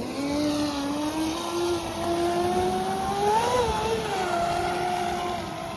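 Electric RC speedboat (26-inch Blackjack on a 2S battery setup) running a pass, its brushless motor and drive giving a steady whine that climbs slowly in pitch, peaks about three and a half seconds in and drops back. It is turning a higher-pitch prop that proves slow on this boat.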